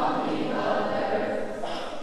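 Large high school choir singing sustained chords in harmony, with a short hissed consonant about a second and a half in.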